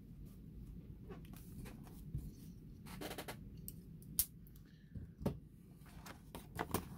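Faint taps, clicks and scuffs of a small cardboard trading-card box being handled on a table and gripped to open it, with a few sharper clicks in the second half.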